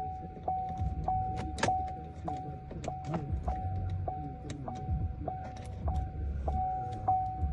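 Background music with a steady beat, about three beats every two seconds, over a held high note and a deep bass line.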